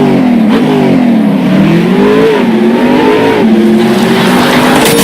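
A car engine revving hard under acceleration, its pitch climbing and dropping several times as it goes up and down the revs.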